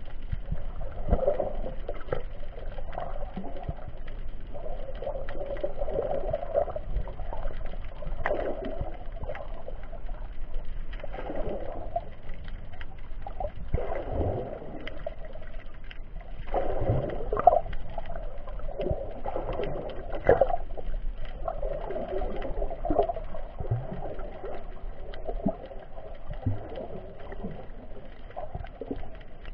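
Underwater water noise heard muffled through an action camera's waterproof case: a rushing, gurgling sound that swells every two to three seconds, with a few soft knocks.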